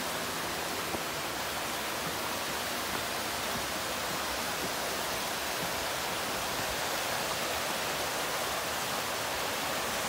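Steady, even rush of flowing water from a mountain river.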